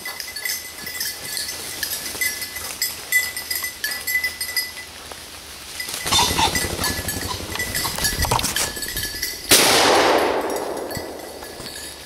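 Faint tinkling and light clicks, then branches and leaves rattling and rustling as a tree is shaken to dislodge a pheasant. About nine and a half seconds in, a sudden loud rush of noise that fades over about two seconds.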